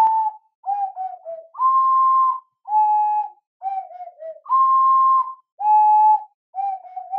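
Transverse ocarina playing a melody: long held notes alternate with short runs of quick falling notes.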